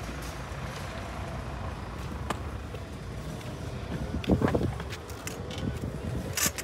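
Shopping trolley being pushed across car-park paving: a steady low rolling rumble, with a couple of sharp clicks. There is a brief louder sound about four seconds in.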